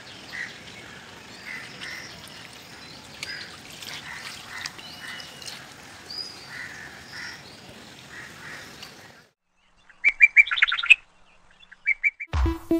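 Birds chirping and calling over a steady wash of flowing water, then a short pause and a quick run of calls about ten seconds in. Music with a heavy beat starts just before the end.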